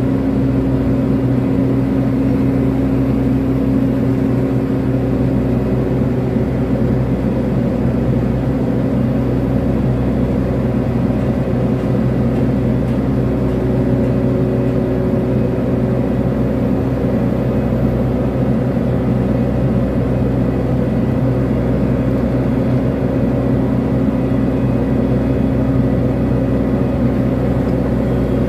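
Kobelco SK200 hydraulic excavator's diesel engine running steadily, an even hum that holds one pitch.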